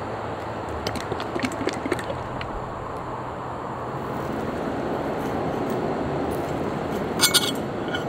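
Steady outdoor background hiss with a few light clicks early on from handling the sauce bottle, then a quick cluster of sharp clinks near the end as metal forks strike a ceramic plate while cutting a croquette.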